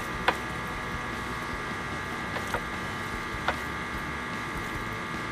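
Fish pieces being dredged by hand in cornstarch on a ceramic plate: a few light clicks and taps of fingers and fish against the plate. A steady hum runs underneath.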